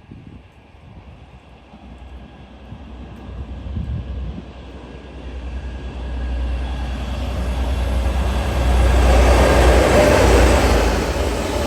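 A diesel-hauled train approaching and passing: a deep engine rumble and wheel-on-rail noise build steadily, loudest about nine to ten seconds in, then ease a little.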